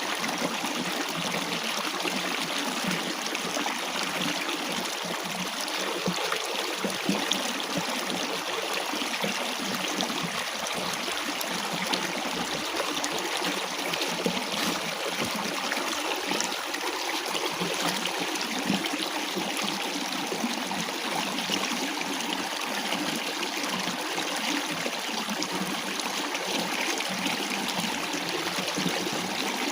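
Water running and trickling steadily, a constant rushing with small splashes and gurgles.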